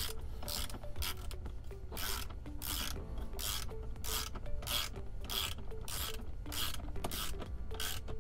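Ratchet with a 10 mm socket tightening a screen-mount bolt: repeated short runs of ratcheting clicks, about one and a half a second, as the handle is swung back and forth.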